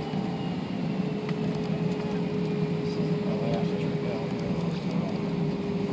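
Airbus A320 jet engines at taxi power, heard inside the passenger cabin: a steady low hum with a faint steady tone running through it as the airliner taxis.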